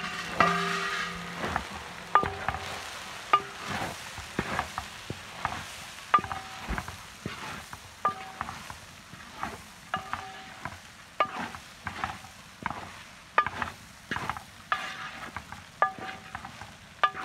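A metal ladle stirring and tossing rice in a large metal pan over heat, knocking and scraping against the pan with a ringing clank about once a second, over a steady sizzle of frying.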